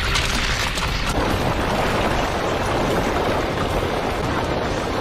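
Sound effects of earth cracking open, with a crackle of breaking rock in roughly the first second, then a continuous rumble of rock being torn up and crushed together.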